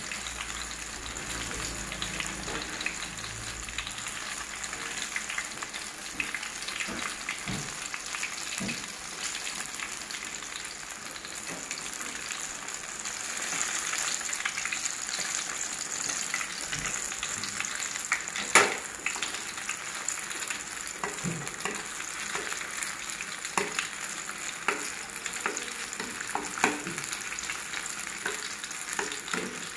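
Hot oil sizzling and crackling steadily as batter-coated banana fritters deep-fry in a wok, with one sharp click, the loudest sound, about two-thirds of the way through.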